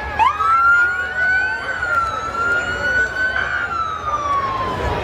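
Emergency-vehicle siren wailing: its pitch sweeps up quickly about a quarter second in, holds high and wavers a little, then falls slowly over the last second and a half.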